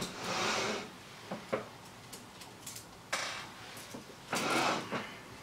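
Objects being handled on a workbench: three short rustling scrapes, with a few light clicks and knocks between them.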